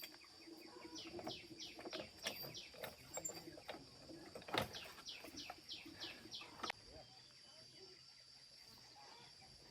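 Faint bird chirping: quick runs of short chirps that fall in pitch, several a second, stopping suddenly about two-thirds of the way through. A steady high whine runs underneath, and a single sharp click about halfway through is the loudest moment.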